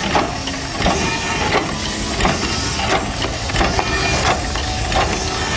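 Replica Fardier du Cugnot steam carriage running under steam: a steady hiss of escaping steam with a regular knock from its engine about every two-thirds of a second.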